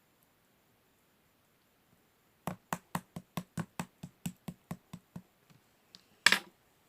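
Slime being pressed and played with: a quick run of about a dozen sharp clicking pops, about five a second, growing weaker, then one louder, longer pop near the end.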